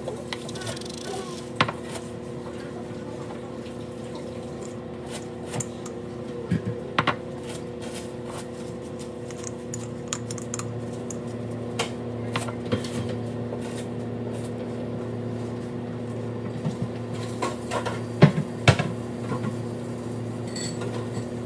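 Light knocks and clicks of a jar, bread and utensils being handled on a countertop, scattered through, with the sharpest pair about 18 seconds in, over a steady hum from nearby appliances.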